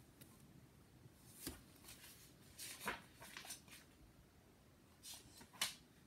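Near silence broken by a few short, faint rustles and taps of a paperback book being handled.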